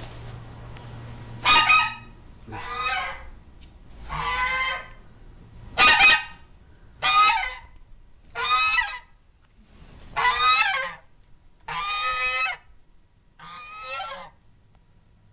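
A goose honking over and over: about nine loud, harsh honks, roughly one every second and a half.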